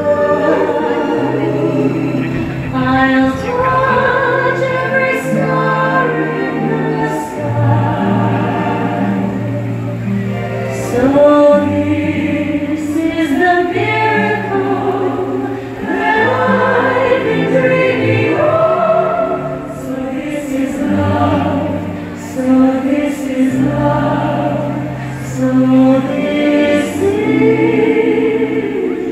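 Show soundtrack: orchestral music with a choir singing over sustained bass notes that change every second or two.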